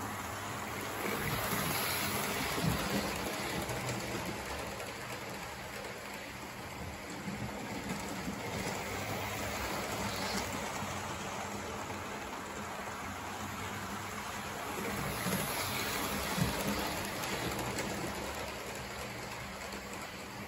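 Hornby OO gauge model trains running on the layout: a steady rush of wheels on the rails and motor hum, swelling twice as a train passes close by.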